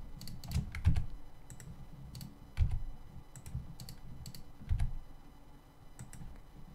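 Computer keyboard keys and mouse buttons clicking at an irregular pace, about a dozen separate clicks, some with a duller knock.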